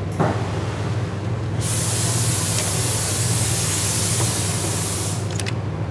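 A steady hiss of a spray or air jet starting near two seconds in, lasting about three and a half seconds and cutting off suddenly, over a steady low hum. A couple of light clicks follow just after it stops.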